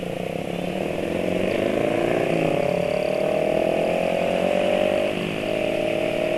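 Motorcycle engine accelerating in traffic, its pitch rising over the first two seconds or so and then holding steady, over a constant rush of road noise.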